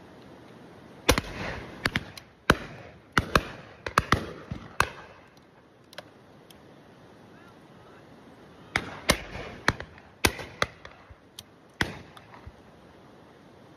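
Shotguns firing on a driven game shoot: a rapid run of shots, some loud and close and others fainter and further off, in two bursts about four seconds apart, each crack ringing briefly.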